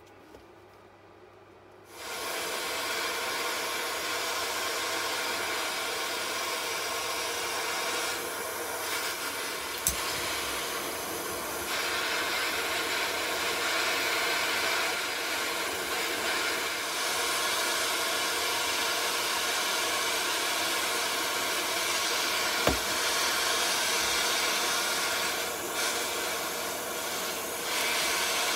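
Two handheld gas blowtorches burning with a steady hiss, starting about two seconds in and getting a little louder partway through, with a couple of faint clicks. They are heating a steel blank red-hot for hardening.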